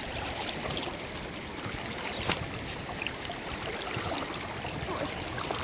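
Muddy river running over shallow rocks, a steady noise of flowing water, with one sharp click a little over two seconds in.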